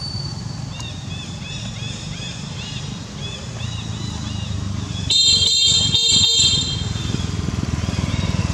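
A motorbike engine running on the road, with a quick run of small high chirps early on. About five seconds in comes a loud, high, steady beeping that lasts about a second and a half, broken into a few short beeps.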